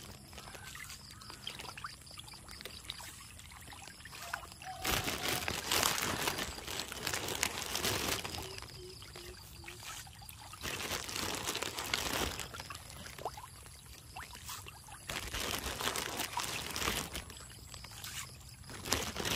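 Handfuls of fish-feed pellets scattered onto a pond, pattering on the water surface in several bursts.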